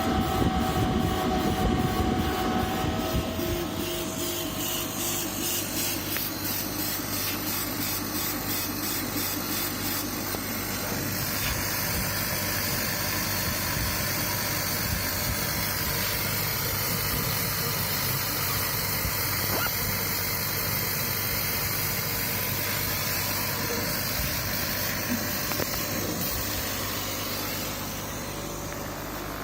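KAMACH 1060 CO2 laser cutting and engraving machine running. A rapid, evenly repeating whirr from the moving head's drive lasts about the first ten seconds. It then settles into a steadier hiss and hum from the machine's fans and air.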